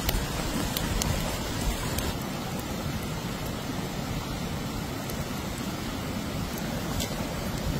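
Steady rushing of a small stream flowing over rocks, with a few faint clicks.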